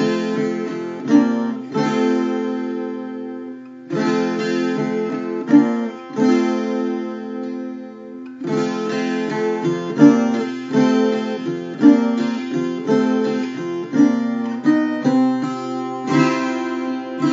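Background music of an acoustic guitar picking and strumming chords, with short breaks about four and eight seconds in.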